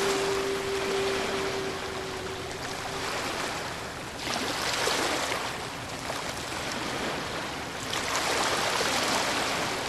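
Ocean waves washing ashore: a steady rush of surf that swells into a new breaking wave about every four seconds. A steady held tone sounds over the surf for the first three seconds.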